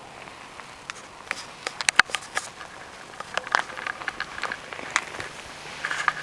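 Irregular clicks and crunches from someone moving close to the microphone, the sharpest about two seconds in, with clusters of short taps later; the model's motor is not running.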